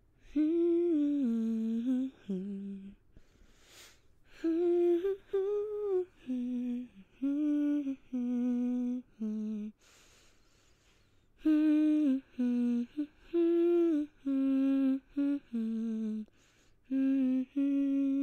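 A young child humming a slow tune in short phrases of a few held notes, with pauses between the phrases.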